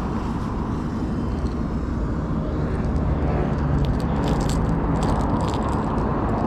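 Steady low rumble of wind on the microphone, with quick clicks and rustles from about halfway through as a small hooked bass is handled in a rag to be unhooked.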